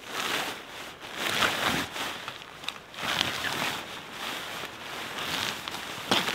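Tent fabric rustling and crinkling in repeated swells as the large tent body is pulled and spread out by hand, with a sharp click near the end.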